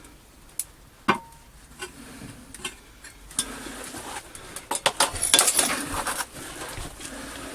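Hard objects clinking and clattering as they are handled: a few separate clicks and knocks, then a louder, busier stretch of rattling and scraping for about three seconds in the middle.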